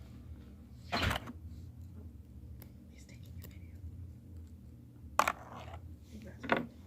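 Sharp clicks and knocks of a screwdriver and the old plastic housing of a seat-adjustment switch being handled, three of them: about a second in, about five seconds in and near the end, over a steady low hum.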